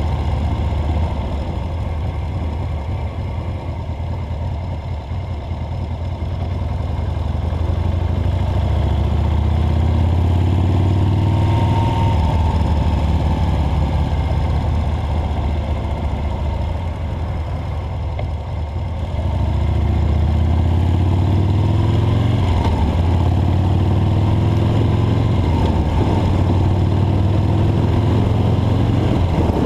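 Vehicle engine running on the move, its pitch rising as it accelerates, quieter for a while and dipping briefly about two thirds of the way through before climbing again.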